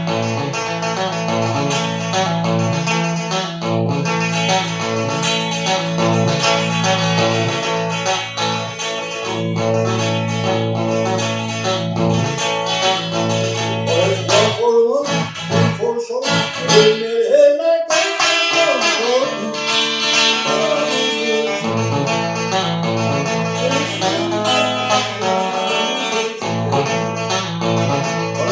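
Guitar music with strummed chords, steady and full, with bending, gliding notes about halfway through.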